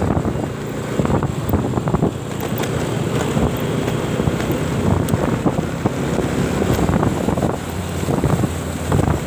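Wind buffeting the microphone on a moving motorcycle, over the steady running of the engine and road noise from traffic.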